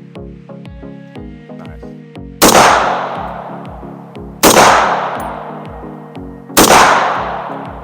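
Three rifle shots about two seconds apart, each with a long echoing tail, over background electronic music with a steady beat.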